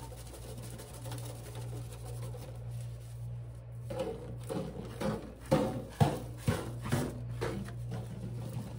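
A run of about eight dull knocks, roughly two a second, starting about four seconds in, over a steady low hum.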